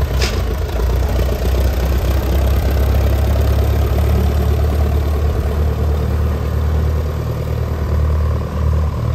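Old four-cylinder Farmall tractor engine running steadily at low speed as the tractor is driven slowly past, a deep even rumble. A brief click sounds right at the start.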